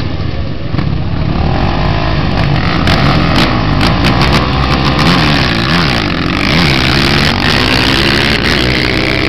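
Two ATV engines racing on a dirt drag strip: revving, then accelerating hard, their pitch climbing and dropping again several times.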